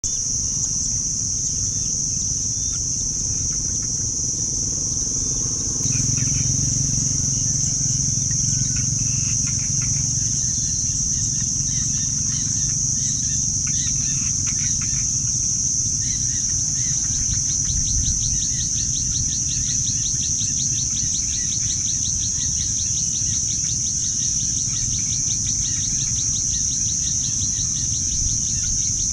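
Insects droning in a continuous high shrill, with scattered bird chirps and, from about halfway through, a fast, even pulsing trill. A low rumbling outdoor noise runs underneath.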